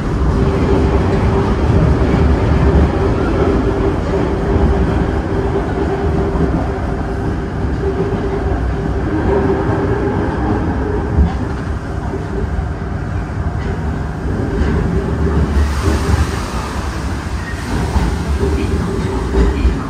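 Osaka Metro 30000 series subway train running at speed: a steady rumble of wheels on rails with a constant hum running through it. A brief hiss comes in about three-quarters of the way through.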